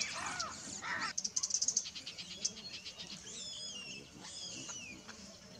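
A baboon troop calling: several shrill, arching cries in the first second or so, with rapid high chattering, then thinner wavering cries that fall in pitch.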